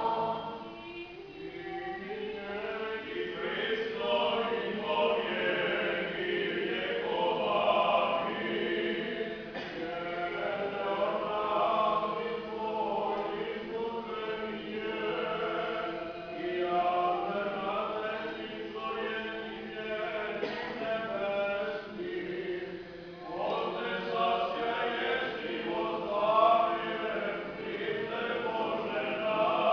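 Choir singing Serbian Orthodox liturgical chant a cappella, in continuous sung phrases.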